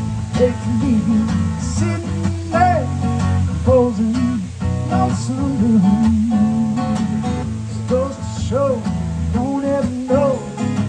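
Acoustic guitar strummed and picked in a steady solo passage.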